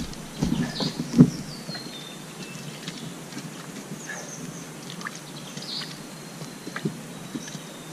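Rustling and a few knocks from a red deer carcass being handled in the undergrowth, the loudest a sharp knock just over a second in. Thin, high bird calls sound now and then in the background.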